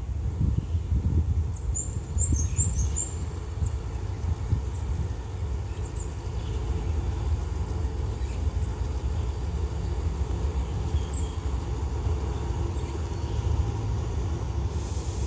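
Distant diesel locomotive of a container freight train running as it slowly approaches, a low rumble with a faint engine hum that grows clearer near the end. Birds chirp briefly about two seconds in.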